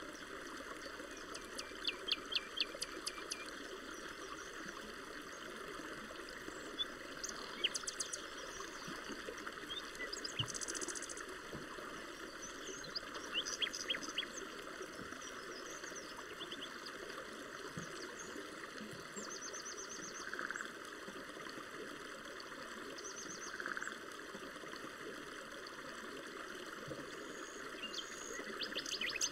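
Forest ambience: songbirds chirping in short, rapid runs of notes every few seconds over a steady background hiss.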